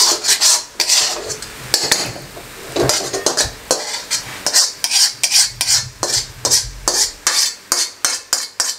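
Metal spatula scraping cooked khoya out of a steel karahi, metal rasping on metal in quick repeated strokes, about three a second.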